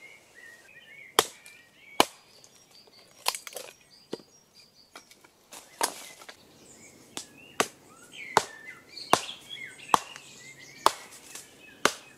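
Hatchet splitting kindling on a wooden chopping stump: about a dozen sharp chops, mostly a second or so apart, with one longer pause early on. Birds chirp quietly behind the strikes.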